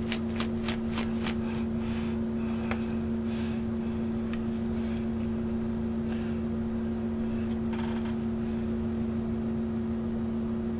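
Steady low hum with a quick run of light clicks in the first two seconds, then only faint rustles and taps of cups and containers being handled on the work table.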